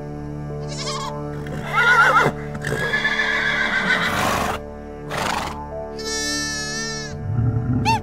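A run of separate animal-call sound-effect samples, farm-animal-like calls, played one after another over a steady music backing track.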